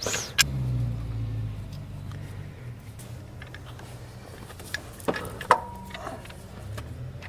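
Scattered metal clicks and clinks of bolts and a new idler pulley being handled and set in place on the engine, the loudest about five and a half seconds in with a brief ring. A steady low hum lies underneath.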